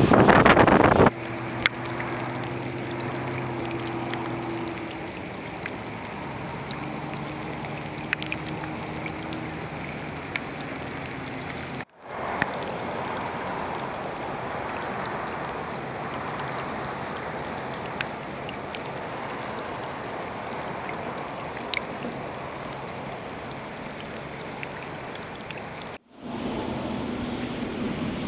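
Steady rushing of floodwater, with a vehicle engine running underneath for roughly the first third. The sound cuts out briefly twice, at about twelve and twenty-six seconds in.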